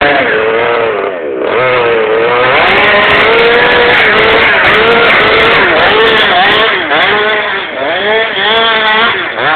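Small two-stroke petrol engine of a large-scale FG radio-controlled monster truck running loud, its pitch swinging up and down again and again as the throttle is worked, with quicker blips near the end.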